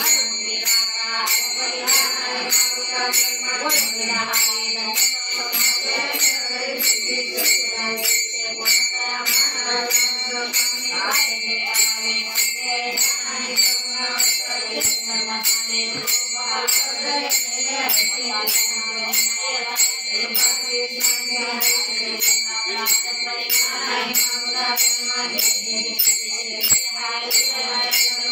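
Marathi devotional bhajan: voices singing to small hand cymbals struck in a steady beat, about three strokes every two seconds, their ringing held under the song.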